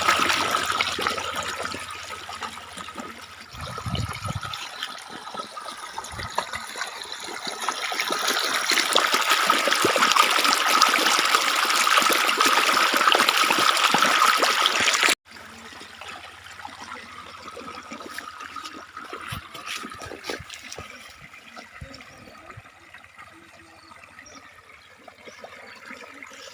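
Water running out of a pipe across an earthen embankment, a steady rush and splash, loud for about fifteen seconds and then suddenly much quieter, a softer trickle.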